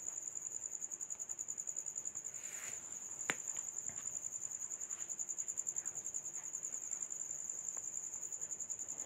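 A cricket chirping in the background: a steady high-pitched trill in rapid, even pulses. A single sharp click sounds about three seconds in.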